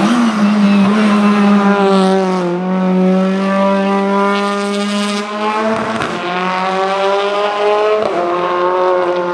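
Race car engine running hard up a hillclimb, its pitch climbing under acceleration and dropping sharply a few times where the driver changes gear, about two and a half, six and eight seconds in.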